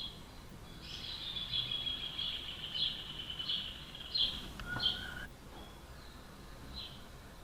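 Rufous hornero singing: a rapid trill with slower, louder notes over it, running from about a second in to about five seconds in, then a few single notes near the end. A sharp click sounds just before the song stops.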